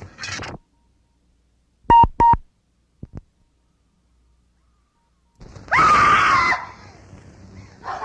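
A film sound-effects scream: a loud, high, pitched cry about a second long that rises and then holds, coming after two short sharp blips and a few seconds of near silence.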